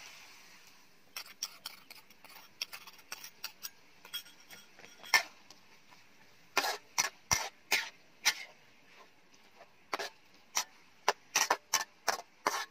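Metal spatula scraping and clinking against an aluminium wok while stir-frying pork and green onion stems. Light scrapes at first, then louder sharp clanks in quick succession from about halfway through.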